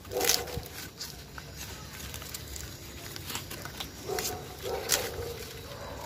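Maize husks and stalks rustling and snapping as ears of corn are pulled by hand, with short animal calls a few times, at the start and again about four to five seconds in.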